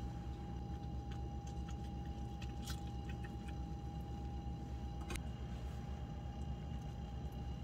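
Quiet room tone: a steady low hum with a thin, steady high whine. Light clicks come about three seconds in and again about five seconds in, as rolled napa cabbage leaves are handled on a wooden board and plate.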